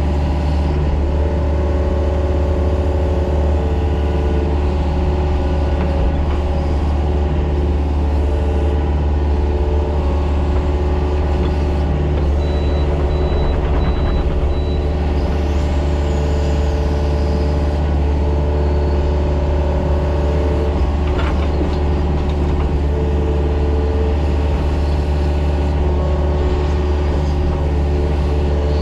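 Mini excavator's diesel engine running steadily with a deep hum, while the machine works. Near the middle there is a short run of faint high beeps.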